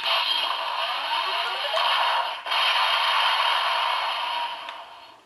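Electronic weapon-firing sound effect played through the DX Geartlinger toy morpher's small speaker when its trigger is pressed: a harsh, noisy blast with a rising sweep in pitch, a short break about two and a half seconds in, then fading out near the end.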